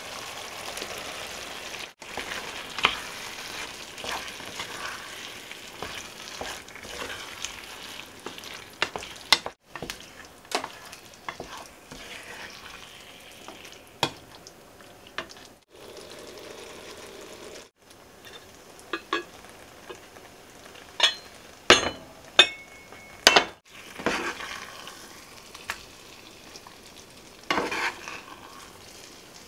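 Gnocchi in tomato sauce sizzling in a pan while being stirred, with the scrape and click of utensils against the pan. About three quarters of the way through come a run of sharp clicks and knocks as a metal spoon serves the food out into a bowl.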